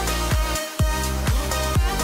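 Background electronic dance music with a steady kick drum at about two beats a second; the bass drops out briefly just before the one-second mark.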